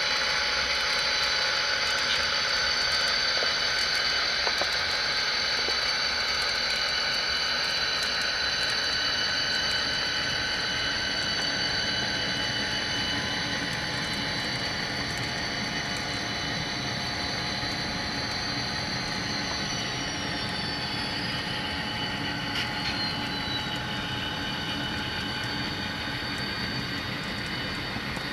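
Tsunami sound decoder in an HO-scale model diesel locomotive playing an EMD 645 diesel engine running steadily through its small speaker. A high whine glides down in pitch about twenty seconds in.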